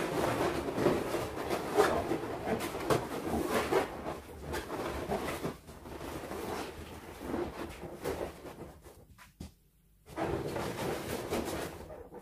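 Latex balloons squeaking and rubbing against each other as a cluster is pressed and twisted onto a metal balloon hoop. The squeaks come irregularly, with a short lull about nine seconds in.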